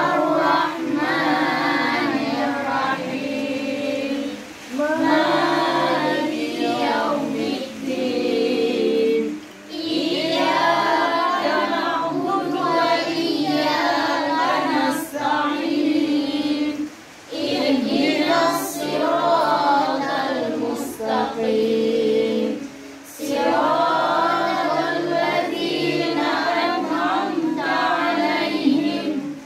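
A group of voices singing together in phrases with short breaks and several long held notes.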